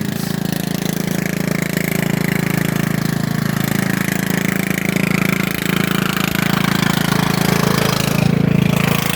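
Riding lawnmower engine running steadily with no muffler, its exhaust removed, a loud, even drone.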